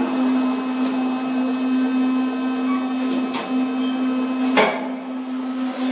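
Elevator running on its way up: a steady mechanical hum built around one low tone, with a faint click about three and a half seconds in and a sharper knock about a second later.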